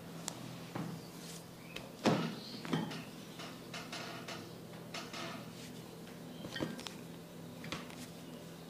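Hands massaging skin and hair: scattered rubbing and handling noises with a few sharp taps, the loudest about two seconds in, over a steady low hum.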